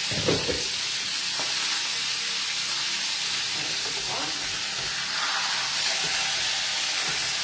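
A stuffed meat roast sizzling steadily as it browns in a frying pan.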